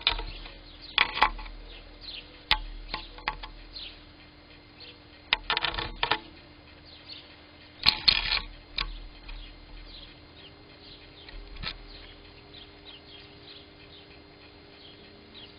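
A bird close to a Blink security camera's microphone: a run of sharp taps and short rustling bursts, loudest about a second in, near the middle and about halfway through, with faint high chirps between them. A steady low electrical hum from the camera runs underneath.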